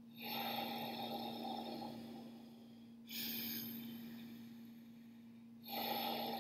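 Slow, audible ocean-tide (ujjayi-style) breathing, the air drawn and pushed through a slightly narrowed throat so that it rushes like surf pulling back over stones. There are three long breaths, in and out, each starting sharply and fading over two to three seconds.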